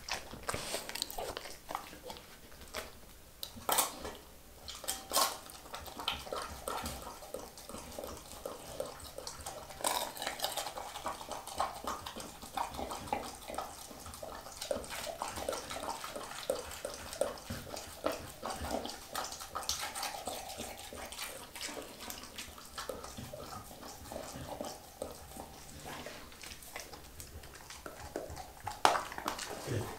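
Dog licking and eating from a glass bowl: wet licking and chewing with a steady run of irregular clicks of tongue and teeth against the glass.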